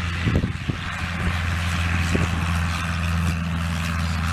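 Cessna 152 light plane's four-cylinder Lycoming engine and propeller running at a steady, even pitch as the aircraft rolls past on grass.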